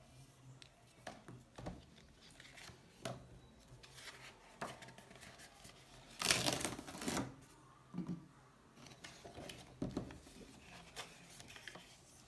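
A sheet of drawing paper rustling and crackling as it is lifted and handled, loudest about six to seven seconds in, among scattered light taps and clicks of things handled on a desk.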